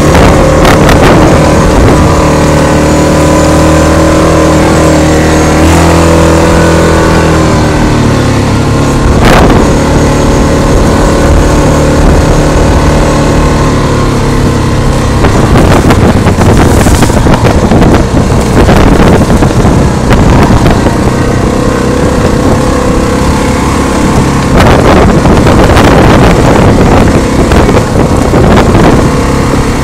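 Yamaha Grizzly 660 ATV's single-cylinder four-stroke engine running loud while riding a trail, its note holding steady for several seconds, then dropping about a quarter of the way in and again near the middle. The second half is rougher, with scattered knocks and rattles as the quad rides over uneven ground.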